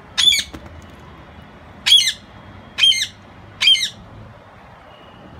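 Green-cheeked conure giving four short, loud calls about a second apart.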